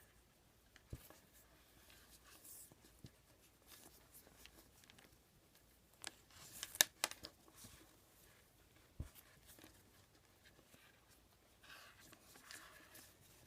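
Paracord being handled and pulled tight while tying cobra knots: faint rubbing and rustling of the cord, with scattered soft clicks and a short cluster of louder taps about six to seven seconds in.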